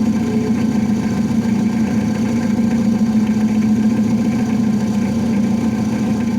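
A vehicle engine idling steadily, with an even hum and no changes in speed.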